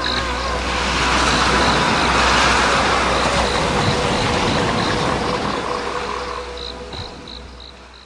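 A surf-like rushing noise in the show's soundtrack swells and ebbs over a low steady hum, with faint high chirps about three a second near the end, then fades out.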